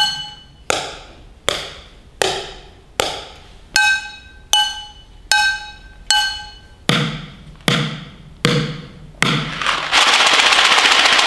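Drumsticks striking upturned kitchen items one at a time in a steady beat, about one stroke every three-quarters of a second, each item hit about four times: some strokes ring with a bright pitch and the last few are lower thuds. Near the end the beat gives way to a box of macaroni and cheese shaken as a shaker, its dry pasta rattling.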